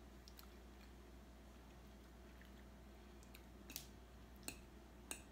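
Faint eating sounds of pasta eaten with a fork: quiet chewing over a low steady hum, with three sharp clicks in the last second and a half.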